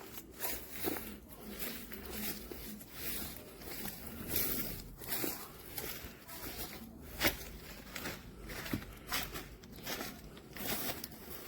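Irregular rustling and crinkling handling noises with scattered sharp taps and clicks.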